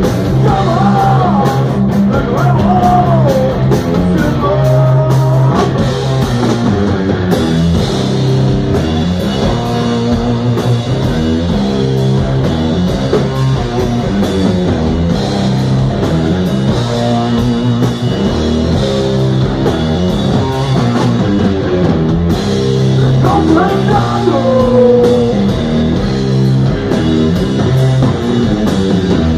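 A live heavy rock band playing loud: distorted electric guitar, bass guitar and drum kit, with a melodic line rising over the riff near the start and again about three-quarters of the way through.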